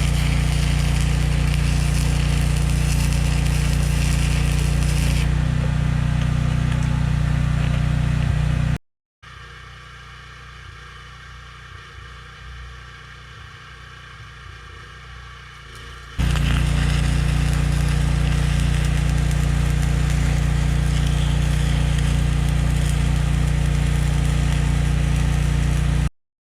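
Stick welding with 7018 rods, the arc crackling over the steady drone of the welder's engine. It breaks off abruptly about nine seconds in, leaving only a quieter steady drone, and resumes at full level about sixteen seconds in.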